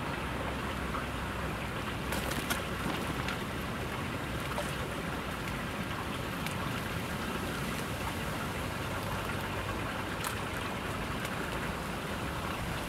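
Steady rush of flowing stream water, with a few faint clicks scattered through it.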